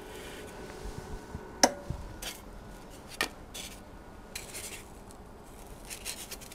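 Foam slices being handled: a sharp knock about a second and a half in, another about three seconds in, and several short squeaky rubs of foam against foam.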